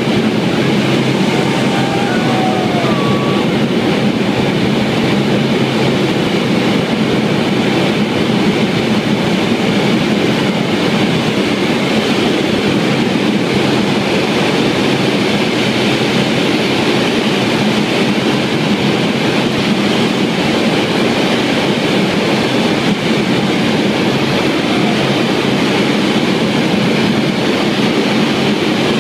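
Cabin noise of a C-130 Hercules in flight: its Allison T56 turboprop engines and propellers running in a steady, loud drone.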